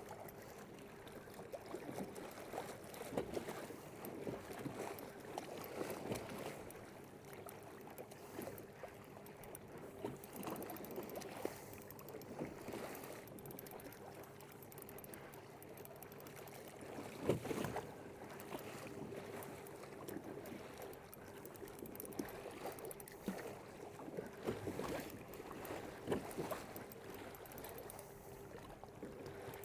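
Water sloshing and splashing along a kayak hull under way, with a faint steady hum from the Old Town AutoPilot 136's electric trolling motor. One brief louder splash comes just past halfway.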